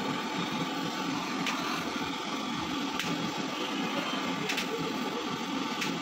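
Handheld gas-can torch burning with a steady hiss as it heats a thin refrigeration pipe joint for brazing. A few sharp clicks come about every one and a half seconds.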